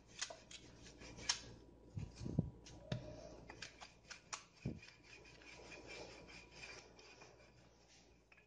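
Wooden rolling pin rolling out a ball of paratha dough on a floured counter: soft rubbing and scraping broken by scattered light taps and a few dull knocks.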